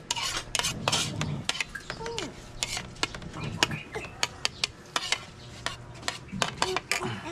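Metal spoon scraping and clinking against a plastic plate in a quick, irregular run of clicks and scrapes.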